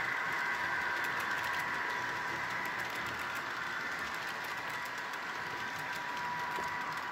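Model freight train running past on its track: a steady whine from the locomotive's electric motor and wheels, with faint rapid clicking of the wheels on the rails.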